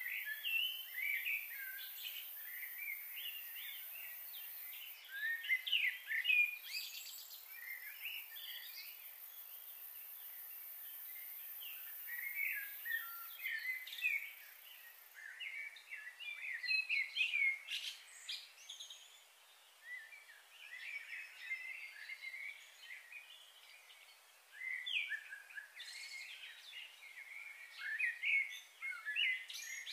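Wild birds chirping and calling in quick, overlapping bursts of short chirps, coming and going in clusters, over a faint steady hiss.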